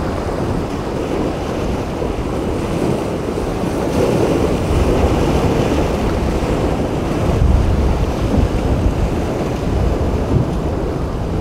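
Wind buffeting the microphone over the wash of rough surf, with stronger gusts about four seconds in and around eight seconds.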